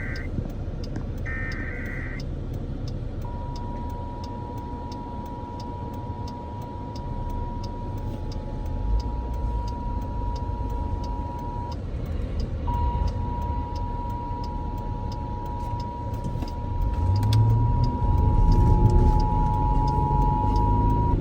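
Emergency Alert System test: the last burst of the SAME header's warbling data tones about a second in, then the two-tone EAS attention signal (853 and 960 Hz) held steady for about eight seconds, breaking off briefly and starting again for another eight seconds or so. Under it runs a steady low rumble of car road and engine noise.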